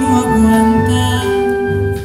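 A symphonic wind band playing long held chords, with a woman singing over them.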